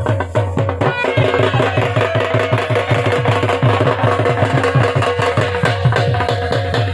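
Dhol drum beaten in a fast, even rhythm under a baja, a reed wind instrument, playing a folk tune over a steady held tone.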